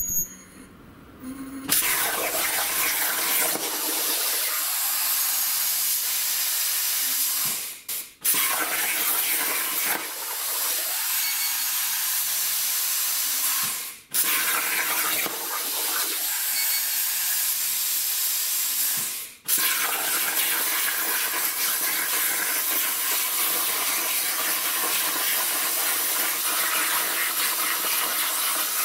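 Hypertherm plasma cutter on a CNC table cutting steel plate: a loud, steady hiss that starts about two seconds in and breaks off briefly three times.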